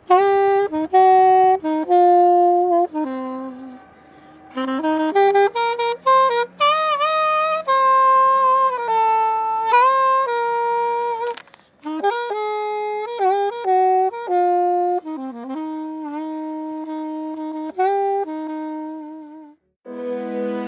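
Solo alto saxophone playing a slow melody of held notes in separate phrases, with a short break about twelve seconds in. Just before the end it stops and a different piece of music begins.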